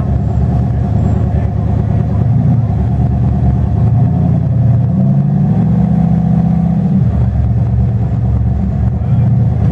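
Rock bouncer buggy's engine running steadily, revving up for about two seconds around the middle before dropping back.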